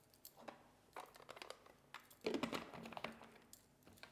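Light clicks and knocks of hard plastic as the lid of a Tupperware Extra Chef chopper is picked up and fitted onto its bowl, with a busier run of clatter about two seconds in.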